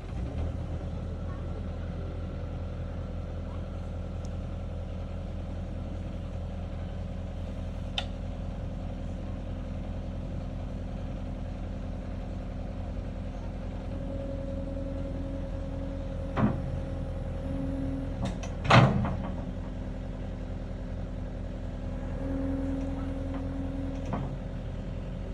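An engine running steadily, with a higher whine coming in for a few seconds at a time and a few sharp clanks, the loudest about 19 seconds in.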